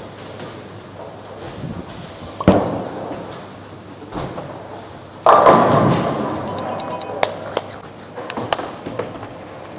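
A bowling ball lands on the lane with a thud, rolls, and crashes into the pins about three seconds later. A few high chiming tones follow the crash.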